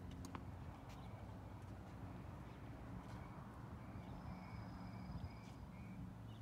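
Quiet outdoor background with a few faint taps from across the court. In the middle a bird calls a string of about five short notes.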